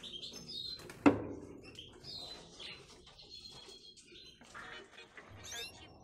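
Caged canaries and finches giving short, high chirps, with a single sharp knock about a second in.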